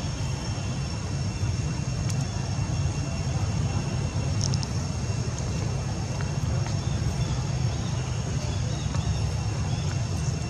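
Steady low rumble of outdoor background noise, with faint steady high-pitched tones above it and an occasional faint click.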